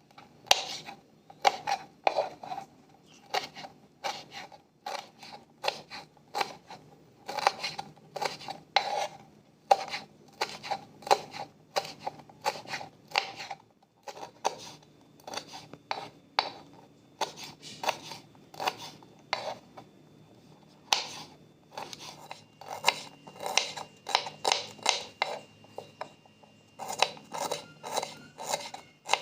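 Repeated short scraping strokes of kitchen food preparation, about one to two a second, with a brief lull about halfway through.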